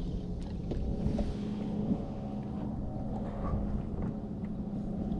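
A boat motor running steadily, a constant low hum, with wind rumbling on the microphone.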